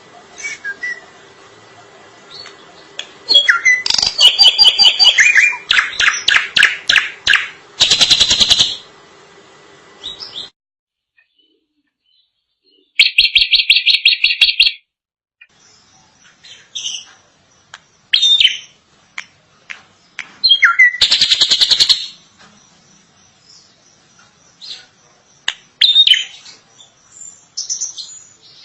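Drongo (srigunting) singing a long, varied song: whistled notes, fast repeated rattling notes and harsh buzzy bursts. The song drops out to silence for about two seconds partway through, then resumes.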